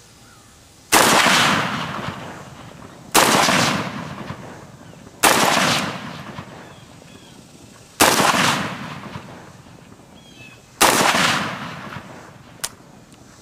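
PTR-91 rifle, a .308 HK-91/G3 clone, fired five times in slow semi-automatic fire, two to three seconds between shots. Each loud shot is followed by a long decaying echo.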